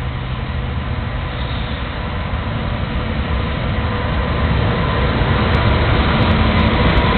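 EH500 electric locomotive approaching with a freight container train, its running noise and the rumble of the train growing steadily louder as it nears. A few sharp clicks come in near the end.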